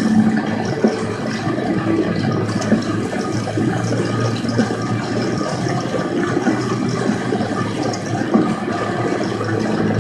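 2002 Honda CB750's air-cooled inline-four engine running at a steady cruise, with heavy wind rush over the microphone.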